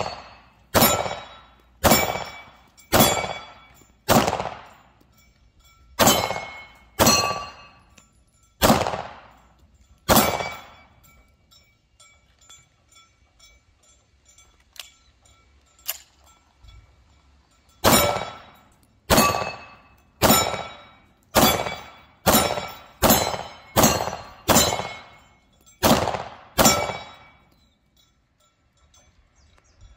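9mm Glock pistol fired in two strings: about nine shots roughly a second apart, then after a pause with a couple of small clicks as the pistol is handled, about eleven faster shots. Each shot trails off in echo under the range's metal roof.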